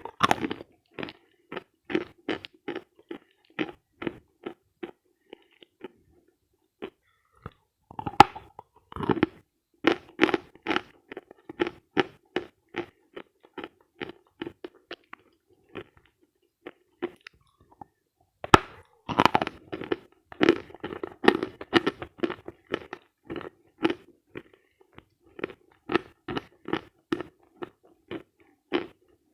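Close-miked mouth sounds of dry, dense edible chalk being bitten and chewed: runs of crisp crunches about two or three a second, broken by short pauses and sharp snapping bites, the loudest about a third of the way in and again about two thirds of the way in.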